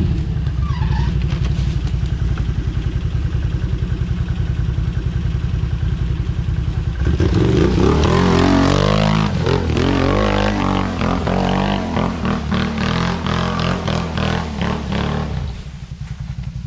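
Can-Am Renegade 800 quad's V-twin engine idling with an even beat, then revving hard about seven seconds in as the ATV pulls away up the slope. Its note rises and falls with clattering along the way, then drops off near the end as it gets farther off.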